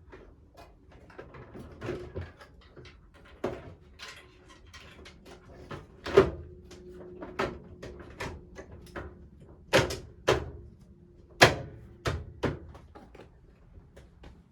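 Irregular knocks and clanks from hands and tools working on a washing machine during a bearing and seal replacement, about a dozen strikes, the loudest a few seconds apart. A few of the loudest leave a brief ringing tone behind them.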